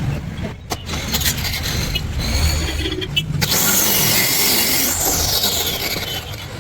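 Woodworking on the wooden counter: a few sharp knocks, then about two and a half seconds of scraping and rubbing of wood.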